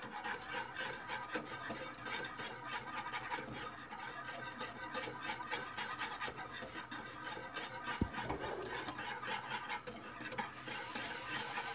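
Wire whisk beating fast against the bottom and sides of a nonstick saucepan, a quick steady run of scraping clicks, with one louder knock about eight seconds in. The lemon cream is being whisked briskly over the heat so the egg does not cook, as it thickens.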